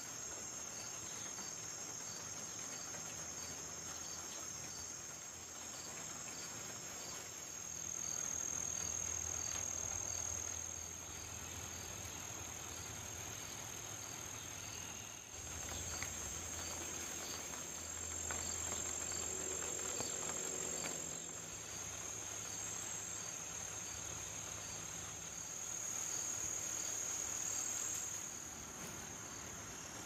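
Crickets chirping outdoors in a steady high-pitched chorus, with one chirping in a regular beat about twice a second.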